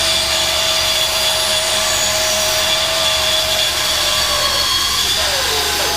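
Einhell band saw running and cutting through wood, a steady motor whine over the noise of the blade. Near the end its pitch falls as the saw slows under the load of the cut.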